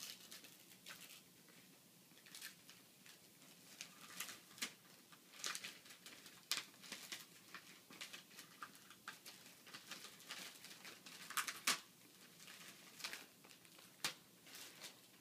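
Gift-wrapping paper being torn and crinkled by hand as a present is unwrapped, in short irregular rips and rustles, faint overall, with the sharpest rips about eleven and fourteen seconds in.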